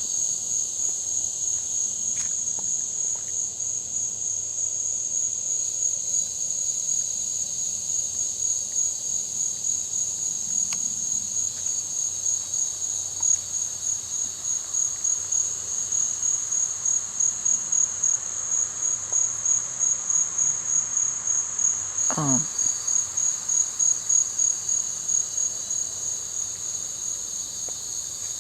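Chorus of singing insects: a steady, high-pitched buzz that swells into a regular, rhythmic throb in the second half. About 22 seconds in, a brief whistle sweeps quickly downward.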